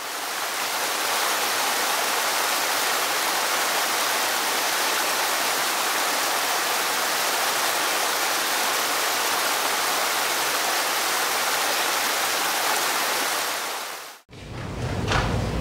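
Mountain stream rushing over rocks in small cascades: a steady, even rush of water that fades in at the start and cuts off suddenly near the end. After the cut, a low rumble begins.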